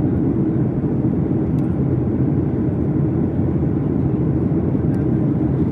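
Steady low rumble of engine and airflow noise inside the cabin of a Boeing 737 MAX 8 in flight, from its CFM LEAP-1B turbofan engines.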